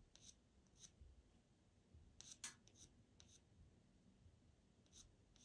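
Pastel pencil making short, light strokes on Pastelmat paper: a handful of faint scratches, with a quick cluster about halfway through, as fine white hairs are flicked in.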